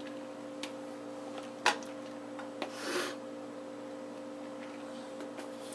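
A few light clicks and a short rustle, typical of food and utensils being handled in a kitchen, over a steady electrical hum.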